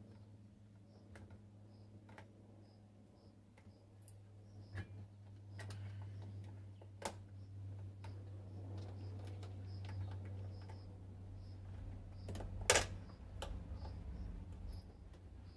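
Scattered light clicks and knocks of small parts and tools being handled during assembly, the sharpest about 13 seconds in, over a steady low hum.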